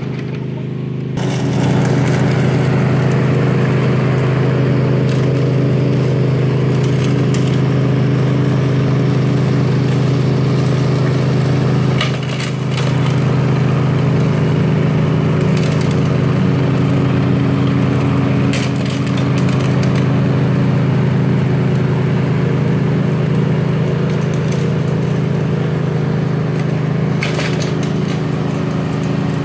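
Toro 22-inch all-wheel-drive Recycler push mower's engine running steadily under load while cutting grass, with a few sharp cracks from the cutting deck.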